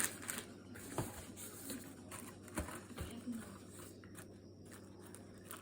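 Light rustling and handling noises, with three soft knocks as items are set down, about a second in, around two and a half seconds in, and shortly after.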